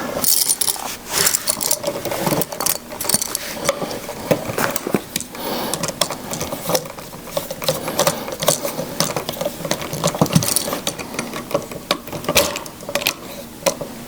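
Irregular clicking and rattling of a screwdriver tightening the terminal screws on an electrical outlet.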